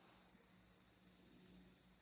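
Near silence: faint room tone with a steady low hum. A faint hiss, the air drawn through the vape atomizer, stops about a quarter second in.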